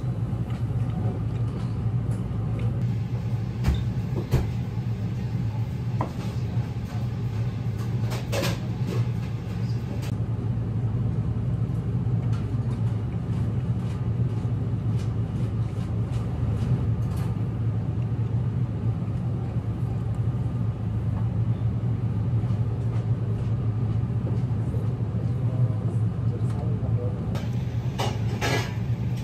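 Steady low rumble of restaurant room ambience, with a few light clinks and taps of tableware; the clearest come about eight seconds in and again near the end.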